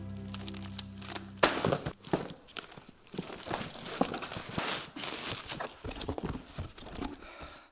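Cardboard box flaps and papers being handled: irregular rustling and crinkling, with a sharp crackle about one and a half seconds in. A low held music drone cuts off at that same moment.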